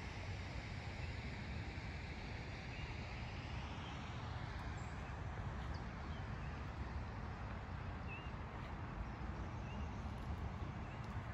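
Outdoor ambience: wind on the microphone, with a few faint bird chirps in the middle.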